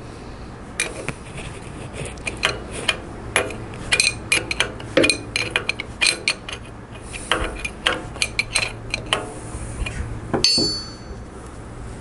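Steel hand tools and nuts clicking and clinking against metal as the kickstarter cover on a Harley-Davidson transmission is bolted up, in a quick irregular series. Near the end one metal tool is set down with a single ringing clink.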